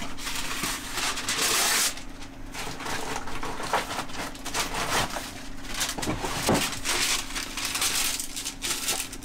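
Baking paper rustling and crinkling as it is handled, in two longer stretches, with a few knocks from a metal baking tray. A steady low hum runs underneath.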